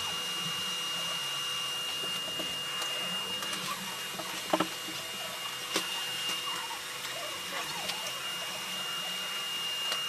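A steady machine-like hum with a constant high-pitched whine, broken by a few soft clicks about halfway through.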